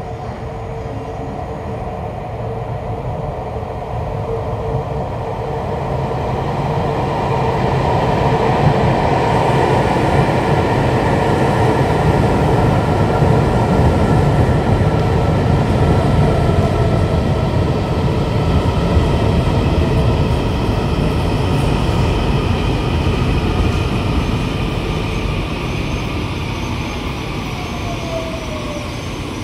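Taiwan Railway EMU800-series electric commuter train pulling into the station, its wheels rumbling on the rails. The sound grows louder as the cars come alongside, then eases as the train slows to stop, and the traction motors' whine falls in pitch near the end.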